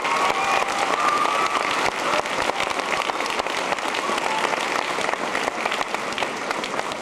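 Audience applauding steadily in a school gymnasium, with a few cheers near the start, easing off toward the end.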